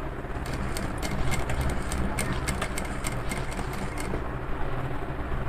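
Industrial lockstitch sewing machine stitching a fabric bag strap: a rapid run of needle clicks from about half a second in to about four seconds in, over a steady low hum that continues throughout.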